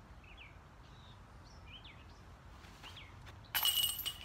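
Birds chirping, then about three and a half seconds in a disc golf disc strikes the basket's metal chains with a loud jangle that rings for about half a second as the disc drops into the basket.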